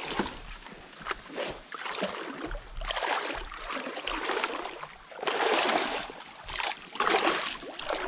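Water splashing and sloshing in irregular swells, several times.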